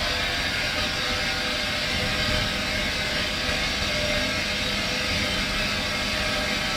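Steady machinery din of a paper recycling plant: an even, unbroken noise with a few faint steady hums running through it.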